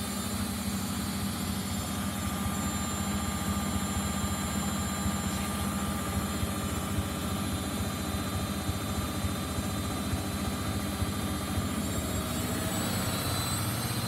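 Bendix BIW 103W front-loading washing machine on a spin-only cycle, its drum motor running with a steady hum and a faint high whine.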